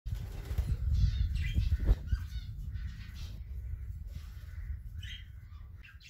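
Caged budgerigars chirping and squawking in short scattered calls, over a steady low rumble on the microphone that is loudest in the first two seconds and fades toward the end.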